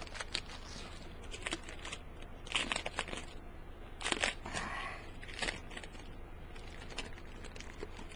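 The packaging around a flat poster is crinkled and pulled open by hand, in short irregular rustles with two louder crinkling bursts about midway.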